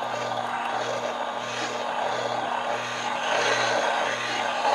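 Tungsten carbide fly cutter being given its final honing on the Japanese waterstone wheel of a Tormek wet grinder: a steady scraping hiss of carbide on stone over the machine's motor hum, which swells and fades about once every 0.7 seconds.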